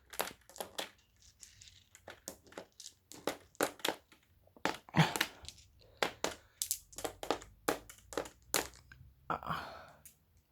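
Glass marbles clicking and clacking against each other and the track as they run down a marble run: a steady scatter of irregular sharp clicks, with short rattling stretches about halfway through and near the end.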